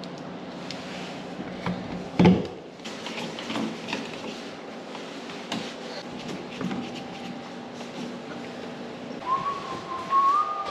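Scattered clicks and knocks of parts being handled over a steady low hum, with one sharp knock about two seconds in. Near the end a single whistle-like tone holds for about a second and a half, rising slightly.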